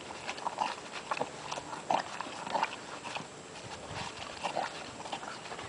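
Horse eating feed from a bowl on the ground: irregular crunching and short knocks of muzzle and teeth at the bowl.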